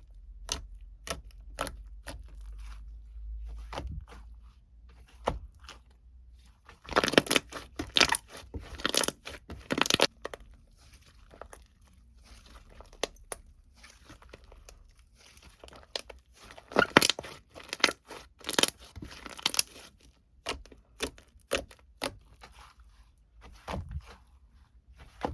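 Close-up handling noises: irregular crinkling, tearing and sharp clicks, coming in loose clusters with short quiet gaps between them.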